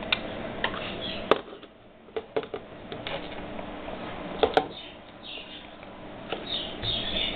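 Steady background hum with a few sharp clicks and taps, the loudest about a second in and again about four and a half seconds in.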